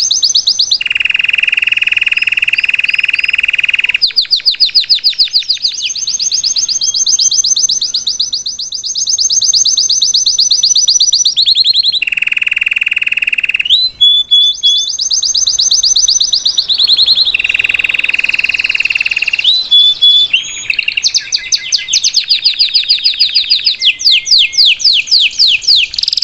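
Belgian canary singing a long unbroken song: fast, even trills alternate with steady held notes of a second or more and short rising whistles.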